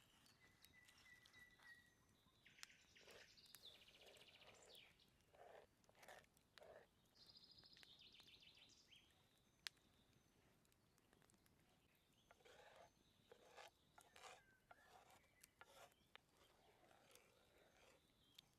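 Faint birdsong: two short high trills and a brief held whistle, among scattered soft clicks and knocks.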